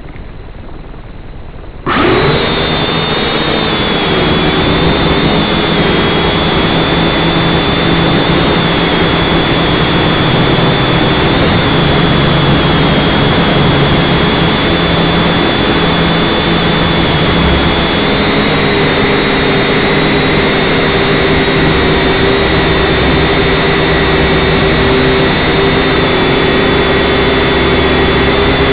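Syma X5C quadcopter's four small coreless motors and propellers start up suddenly about two seconds in, then run with a loud, steady whine, heard up close from the drone's own onboard camera.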